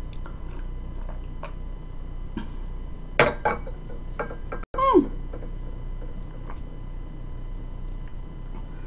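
Small clinks of a mug and dishes on a table, with a cluster of sharp clicks about three seconds in and a short falling vocal sound about five seconds in.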